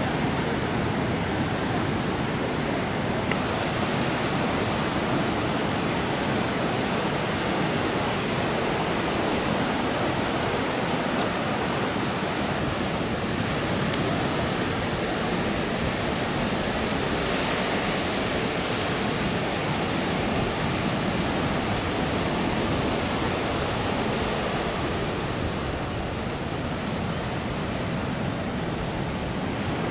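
Ocean surf breaking on a sandy beach: a steady, unbroken wash of waves.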